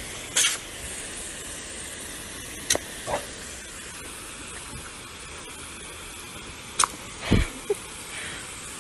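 Garden hose spray nozzle jetting water with a steady hiss. A few short sharp sounds break through, the loudest about seven seconds in.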